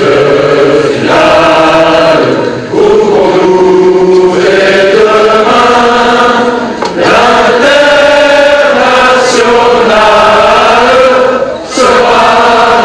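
A large crowd singing together in unison, in long held phrases with short breaks between them.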